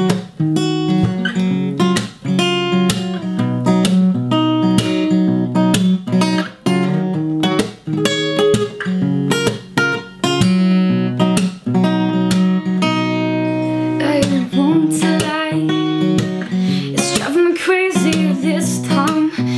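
Acoustic guitar playing a song's introduction, strummed in a steady rhythm with sharp percussive strikes on the strings. About three-quarters of the way through, a young woman starts singing over it.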